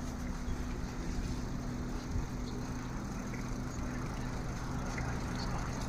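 A motor vehicle's engine running at a steady speed with a low rumble and an even hum, heard from the moving vehicle.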